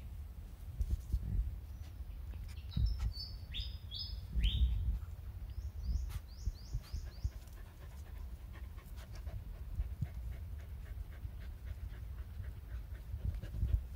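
Dog panting over an uneven low rumble, with faint clicks scattered through. A small bird chirps a few seconds in: a handful of falling chirps, then a quicker run of about six short ones.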